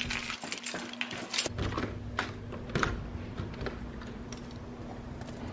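Clicks and knocks of a garden hose being handled and fitted to a travel trailer's fresh-water inlet, over a steady low rumble.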